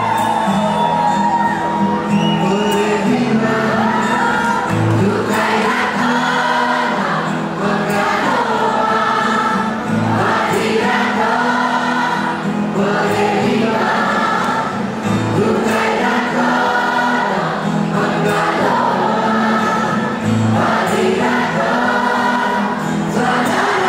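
Music playing, a song with singing voices over sustained low notes and a low beat recurring every few seconds.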